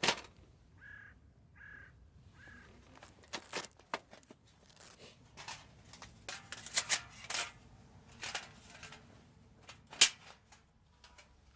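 Irregular sharp clicks, taps and scrapes of outdoor camp-cooking handling, the loudest a click at the very start and another about ten seconds in. A bird chirps three times in the first three seconds.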